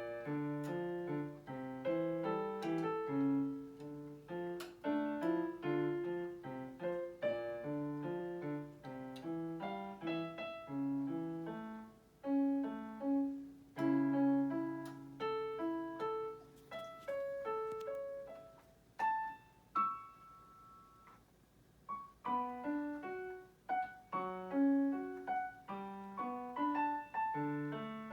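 Solo piano playing a melody over chords and a bass line, with two short breaks in the playing partway through.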